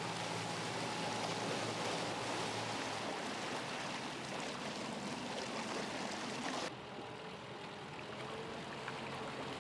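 Marina ambience: a steady rush of water and boat noise with a low hum under it. About two-thirds of the way through it changes suddenly to a duller, slightly quieter rush.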